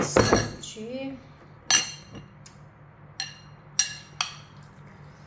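Metal spoon clinking against a glass bowl while curry is scooped out: about five sharp, separate clinks spread over a few seconds, after a louder clatter at the start.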